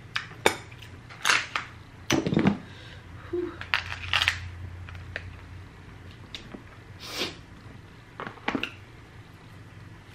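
King crab leg shell being cracked and snapped apart by hand: a scattered series of sharp cracks, crunches and clicks of shell, most of them in the first half.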